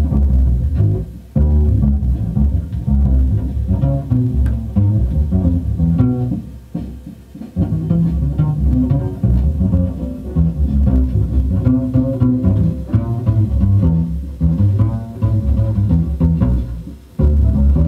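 Jazz record playing, led by a double bass plucked pizzicato in a run of low notes, with short pauses about a second in, around seven seconds in, and near the end.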